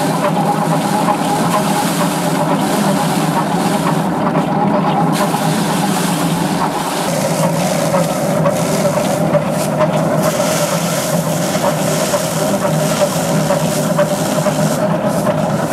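A small engine running steadily, its drone dropping slightly in pitch about seven seconds in.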